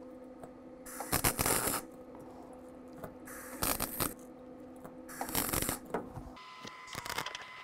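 MIG welder laying short stitch welds on a car body's sheet steel: three crackling bursts of arc of about a second each, with a steady low hum between them.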